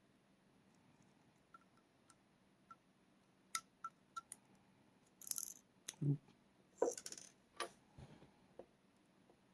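Small metallic clicks and clinks from pins, springs and tools being handled while a pin-tumbler rim cylinder lock is reassembled. A few faint ticks at first, then louder, busier clicking about halfway through, with short rattles and one soft knock.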